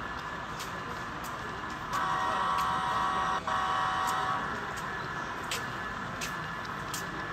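Model train locomotive's horn sounding about two seconds in: one blast, a momentary break, then a shorter blast. It plays over steady background noise with occasional sharp clicks.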